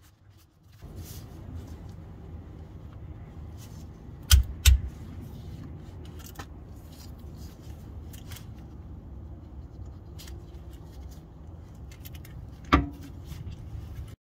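Ratchet with a hex bit socket working a plug on a Haldex coupling housing: scattered metallic clicks and clinks of the tool, with two sharp knocks about four seconds in and another near the end. A steady low rumble runs underneath.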